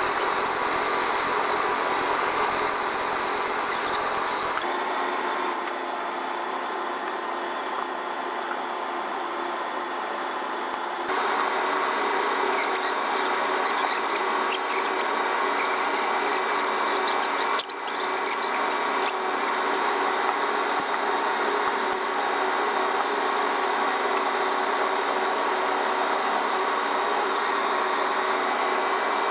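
Steady hum of running machinery with several steady tones. It drops a little in level about five seconds in and comes back up about eleven seconds in, with a few light clicks and ticks in the middle.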